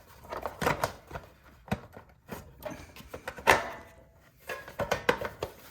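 Irregular clicks, knocks and rattles of parts being handled and fitted on a snow blower engine during reassembly, the loudest knock about three and a half seconds in.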